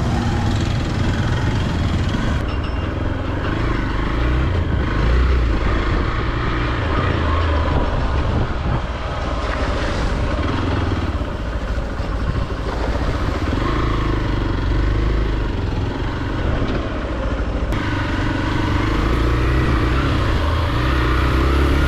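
Hero XPulse 200 motorcycle's single-cylinder engine running steadily as the bike is ridden off-road.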